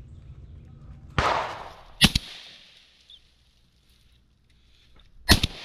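Shotgun shots fired at a swamp rabbit: three blasts, a duller one about a second in, then two sharp, loud shots about two seconds in and near the end, each ringing out briefly.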